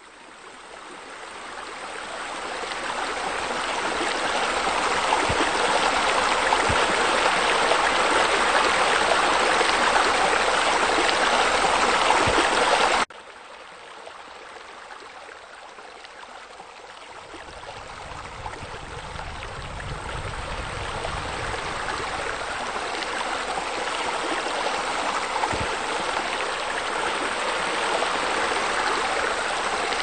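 Steady rush of flowing water, like a fountain or spillway pouring into a pool. It fades in over the first few seconds, then about 13 seconds in it cuts abruptly to a quieter, deeper water sound that gradually grows louder again.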